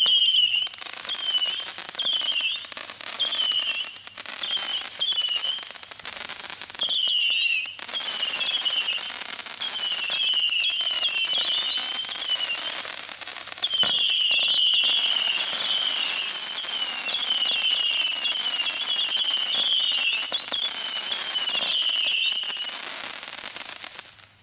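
TNT Screaming Demons 100-shot firework cake firing a long string of screaming whistle shots over a rushing hiss with crackle. Each shot is a short whistle that dips in pitch, spaced about two a second at first, then overlapping into an almost continuous shriek from about seven seconds in, stopping just before the end.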